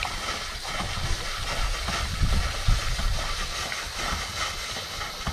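Small Worthington-style steam water pump running and pumping well, with a steady hiss of escaping steam over uneven low thuds.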